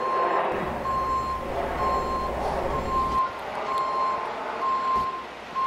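Vehicle backup alarm beeping a single steady high tone, about one beep a second, over the low running of a truck engine.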